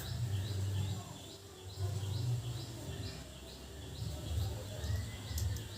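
A bird chirping: short, high chirps repeated evenly at about two a second, stopping about four and a half seconds in, over a low steady hum.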